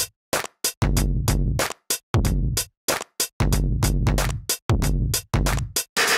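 Drum samples played live from the pads of a Native Instruments Maschine MK2 groove box: a beat of separate hits, with a deep bass drum and higher drum sounds, and short dead gaps between the hits.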